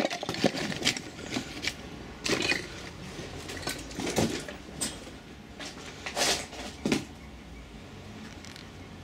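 Irregular footsteps crunching and scuffing over rubble and broken plaster. About seven sharp crunches and knocks come in the first seven seconds, followed by quieter steps near the end.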